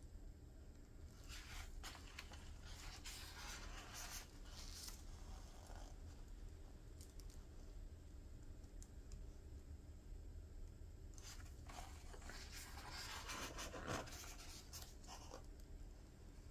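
Paper pages of a hardbound yearbook being turned by gloved hands: two rustling page turns, one starting about a second in and the other about eleven seconds in.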